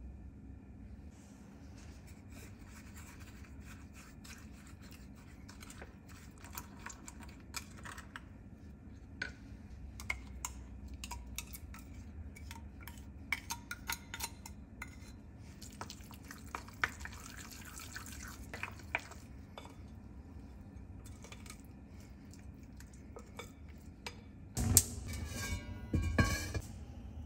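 A spoon clinking and scraping against glass bowls while a sauce is mixed and poured, in scattered short taps. Near the end comes a louder cluster of sharp clattering clicks lasting about two seconds.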